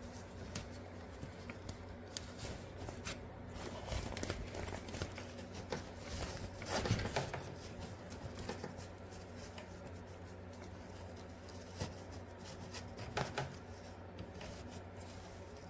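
Clear plastic greenhouse cover rustling and crinkling as its ties are knotted around the frame poles, with small clicks of handling. The loudest rustle comes about six to seven seconds in.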